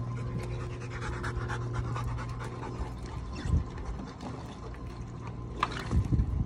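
Dogs, Rottweilers and a Cane Corso, panting as they crunch dry kibble from a tray. There are two short low thumps, about three and a half seconds in and again near the end.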